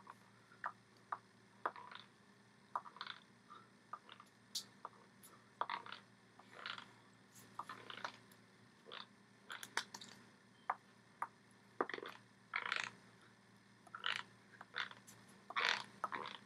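Faint, irregular taps, slaps and short rustles of hands striking each other and brushing against the body and shirt while someone signs in sign language. Sharp single ticks come first, then longer brushing sounds in quick runs.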